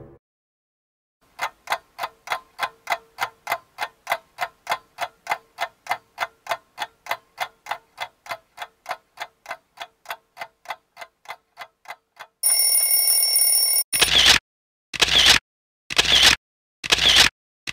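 Clock-ticking sound effect: even ticks about four a second, slowly fading. About 12.5 s in comes a steady ringing tone for a second and a half, then loud sharp clicks like a camera shutter, about one a second.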